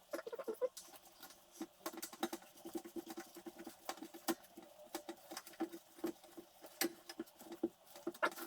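Rapid, irregular light clicks and taps of small parts being handled in the workshop.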